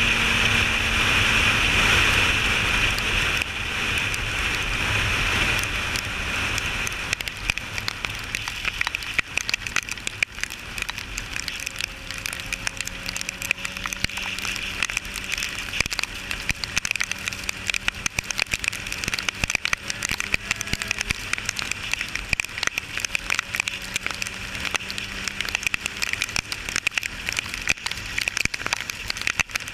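Yamaha street bike riding at highway speed: loud rushing wind and engine noise that eases after about seven seconds, then rain crackling densely on the helmet camera over the steady hum of the engine.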